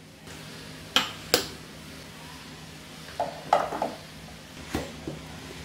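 A few sharp clinks and knocks from a stainless-steel mixer jar and steel bowl being handled on the counter as peeled, cooked tomatoes are dropped into the jar: two clicks about a second in, a short cluster midway, and two more near the end.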